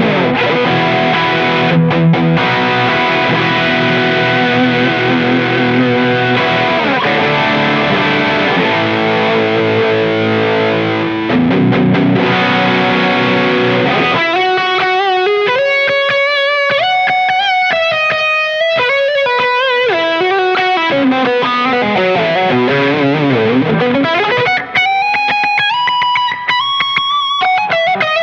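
Tele-style electric guitar with two humbuckers (Umeda UTE-Aldernico2) played through distortion. For about the first half it plays full, sustained overdriven chords, then a single-note lead line with string bends and vibrato.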